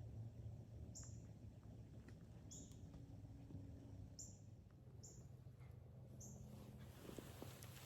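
A small bird giving short, high chip notes, five of them about a second or so apart, over faint outdoor quiet.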